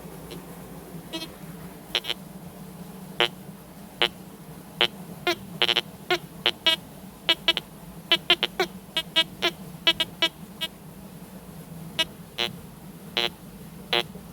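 TX-850 metal detector sounding a long run of short, high beeps at irregular intervals over a steady low hum. These are erratic signals that its owner puts down to messed-up settings.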